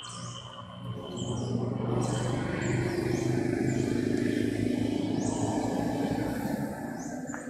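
Birds chirping repeatedly over a low, dense rumble that builds about a second in and eases off near the end.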